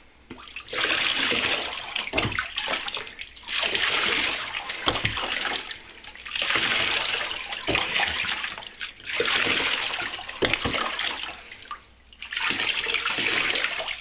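Water poured from a plastic container over a wet cat in a bathtub, splashing in about five pours of a second or two each, with short pauses between.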